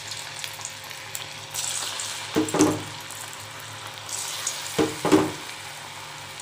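Wheat-flour bonda batter deep-frying in hot oil in an iron kadai: a steady, bubbling sizzle that gets briefly louder a couple of times as fresh lumps of batter are dropped in by hand.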